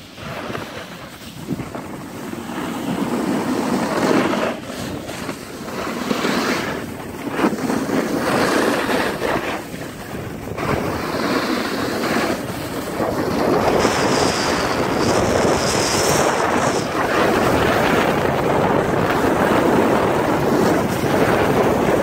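Wind rushing over the microphone of a camera moving downhill on a groomed ski slope, mixed with the hiss and scrape of edges sliding on packed snow. It builds just after the start and stays loud, with a sharper high hiss about 14 to 17 seconds in.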